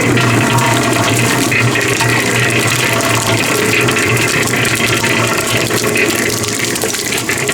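Concrete mixer running: a steady motor hum under a loud, continuous rush of sand moving in the turning drum.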